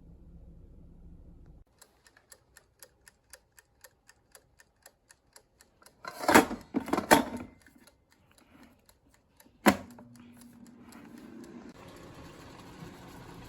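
Evenly spaced clicking, about three clicks a second, followed by two loud rustling bursts and then a single sharp knock; after that a steady low hiss continues.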